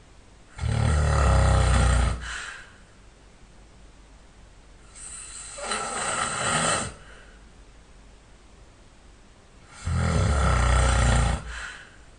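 A sleeping man snoring loudly: two long rattling snores, about nine seconds apart, with a quieter breath without the rumble between them.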